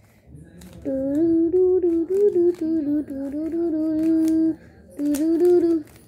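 A child humming a tune with closed lips, holding long notes that step up and down in pitch. The humming starts about a second in, breaks off briefly about four and a half seconds in, and resumes for a short phrase near the end.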